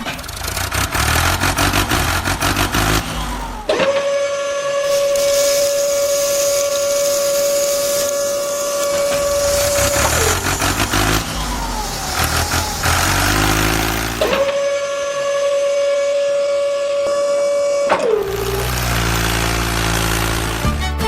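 Small motor of a miniature truck running with a steady whine. It spins up about four seconds in, holds, and winds down about six seconds later, then runs again the same way for about three and a half seconds. Rougher mechanical noise fills the gaps between the runs.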